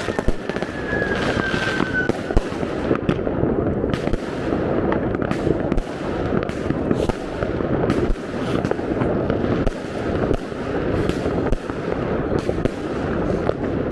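Many fireworks and firecrackers going off at once: a dense, continuous crackle of bangs. A whistle, falling slightly in pitch, runs through the first two seconds.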